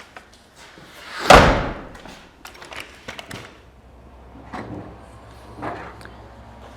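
A door slams shut with one loud bang about a second in, ringing briefly. A few lighter knocks follow.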